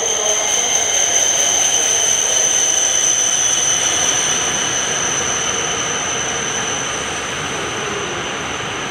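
H5 series Shinkansen train pulling into a station alongside the platform: dense rushing rail and air noise with a steady high whine over it. It is loudest in the first few seconds and eases off gradually as the train slows.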